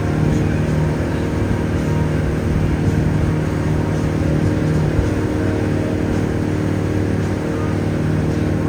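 Riverboat water taxi's engine running at a steady cruising speed: a low, even drone that holds its pitch.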